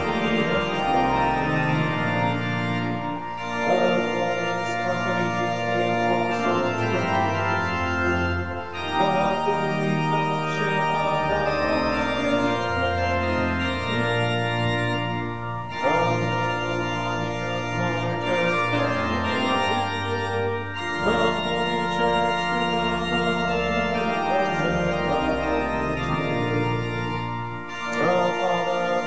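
Church organ playing a slow hymn tune in held chords, phrase by phrase, with brief pauses between phrases about every five to seven seconds.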